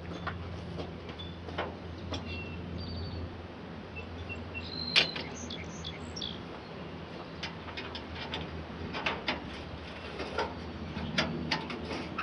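A few short, high bird chirps over a steady low hum, with scattered light clicks and knocks; the sharpest knock comes about five seconds in.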